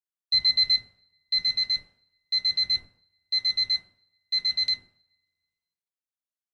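Electronic alarm beeping: five bursts of four quick high-pitched beeps, about one burst a second, the typical pattern of a digital alarm clock. It stops about five seconds in.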